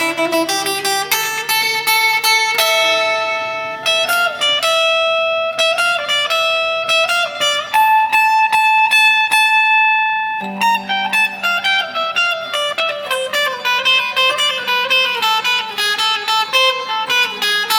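Instrumental break of a song, played on guitar: a melody of quick plucked single notes, with a few longer held notes around the middle.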